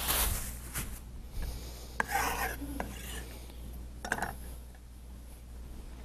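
Hands rubbing together, then food scraps scraped and gathered off a wooden cutting board, with a few light clicks.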